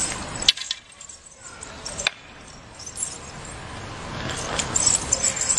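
Outdoor street noise with two sharp knocks about half a second and two seconds in, then light high-pitched rattling near the end.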